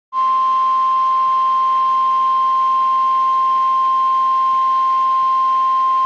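NOAA Weather Radio warning alarm tone: a single steady high tone of about 1050 Hz over a faint radio hiss. It signals that a warning message follows.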